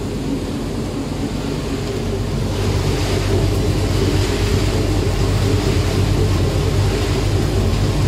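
Chili-pepper dry-cleaning machine running with a steady low hum, with the dried chilies tumbling and rattling over its stainless steel mesh screen. The rattling hiss grows louder about two and a half seconds in.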